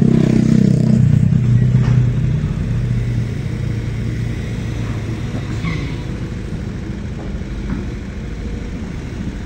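Diesel engine of a Kobelco long-reach excavator working, a low drone that is loudest in the first couple of seconds and then eases to a steadier, lower rumble.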